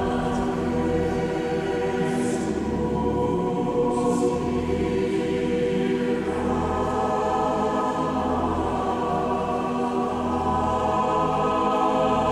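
A choir singing sustained chords, echoing in a large stone cathedral; the harmony moves to a new, fuller chord about halfway through.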